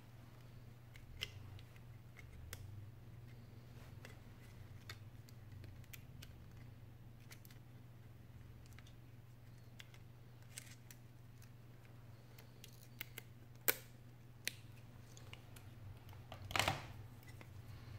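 Faint scattered clicks and light taps of small metal phone parts and a hand tool being handled while an iPhone 6s display assembly is worked on, over a low steady hum. Near the end comes a short, louder rustling clatter.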